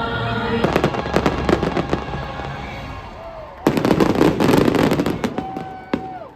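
Fireworks crackling and popping in dense, rapid clusters, cutting in abruptly after a moment of music, with a second, louder burst of crackle in the middle.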